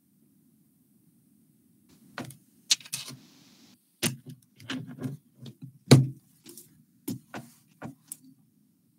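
A faint steady hum, then about a dozen irregular clicks and knocks, like small objects being handled. They start about two seconds in, and the loudest comes about six seconds in.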